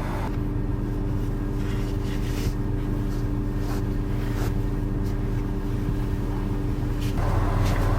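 Steady low hum of a running vehicle engine, with a few faint ticks; the sound gets fuller and a little louder about seven seconds in.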